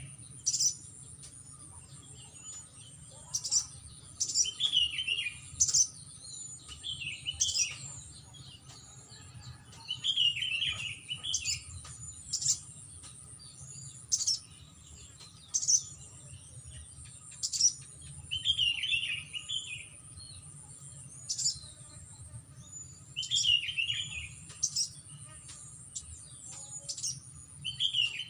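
Small songbirds calling: sharp, high chirps every second or two, mixed with short scratchy chattering phrases. A steady high-pitched insect whine runs underneath.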